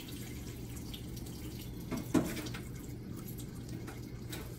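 Thick cake batter sliding out of a stainless steel mixing bowl into a stoneware bundt pan, with faint wet sounds and one louder plop about two seconds in.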